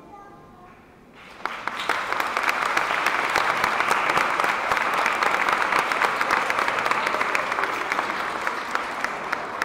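Audience clapping, breaking out about a second in after a brief hush at the end of a piece of music, then thinning slightly near the end.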